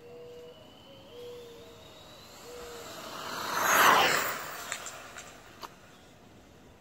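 Traxxas Rustler electric RC truck with a Poseidon 2200kv brushless motor speeding past: a rising motor whine and rush of tyres that swells to a loud peak about four seconds in, then fades quickly, followed by a few small clicks.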